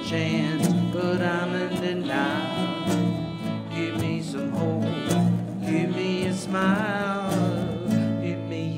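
Acoustic guitar strummed together with a bowed fiddle, played as a folk-country duo, the fiddle's notes wavering with vibrato.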